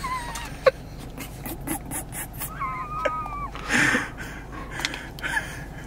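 Plastic scoop and powder tub clicking and rustling as pre-workout powder is scooped and carried to a shaker bottle. Two short high squeaky whines are heard, one at the very start and one near the middle.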